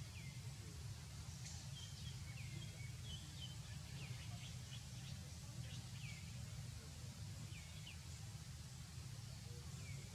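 Faint bird chirps, short calls that drop in pitch, coming every second or so over a steady low hum of background noise.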